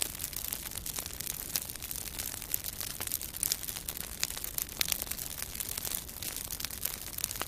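Campfire crackling: a steady hiss of burning with irregular sharp pops and snaps from the wood.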